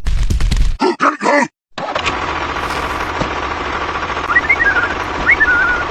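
A short burst of rapid loud knocking and a brief voice, a moment of silence, then a vehicle engine running steadily with a few bird chirps about four to five seconds in.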